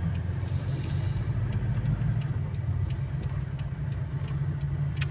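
Car engine and road noise heard from inside the cabin during a turn, with the turn-signal relay ticking steadily, roughly two to three clicks a second, from about a second in.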